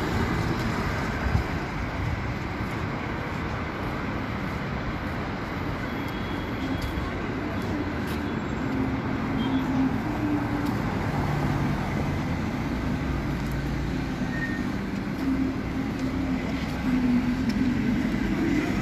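Street traffic: car and minibus engines running and passing, a steady din with a low engine hum that grows stronger in the second half.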